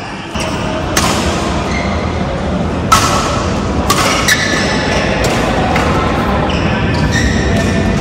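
Badminton rally: sharp racket strikes on the shuttlecock, the loudest about three seconds in, with short high squeaks of shoes on the court over a steady background din.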